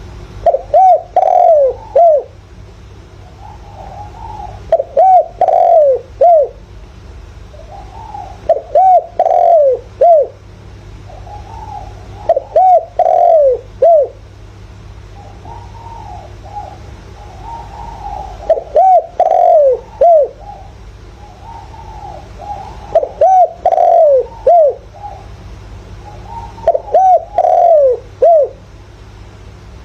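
Spotted dove cooing: seven phrases of three or four quick coos, about one every four seconds, with fainter coos between them. A steady low hum runs underneath.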